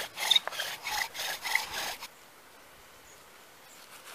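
Bow drill in use: a wooden spindle spun by a cord bow grinds in a wooden hearth board, giving rhythmic rasping strokes about twice a second. The drilling stops suddenly about two seconds in.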